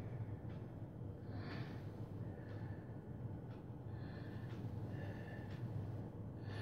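Faint steady low hum with a few soft breaths.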